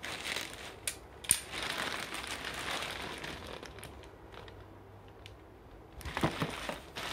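Packaging being handled and unwrapped: crinkling and rustling with a few sharp clicks. It goes quieter for a couple of seconds, then there are some knocks near the end.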